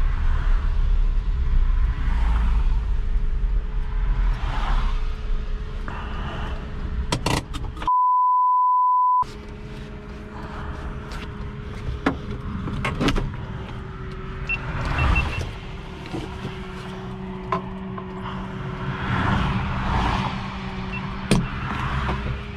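Cab sound of a 1991 VW Caddy 1.6 turbodiesel coasting to a stop after engine failure: low rumble for the first several seconds, then a one-second censor bleep. After it comes a quieter steady hum with scattered clicks and knocks.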